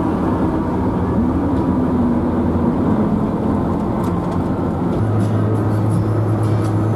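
Toyota Hiace minibus driving, with a steady engine and road drone. A deeper steady hum comes in about five seconds in.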